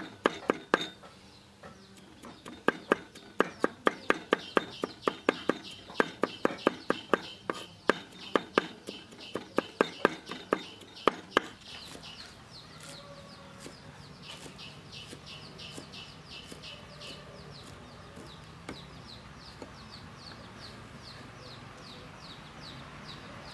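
Cleaver chopping garlic and green onions on a wooden cutting board in quick strokes, several a second, stopping about halfway through. After that a bird's short high chirps repeat about twice a second.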